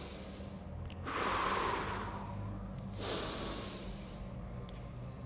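A man breathing slowly and deeply through the nose: two long, hissy breaths about two seconds apart.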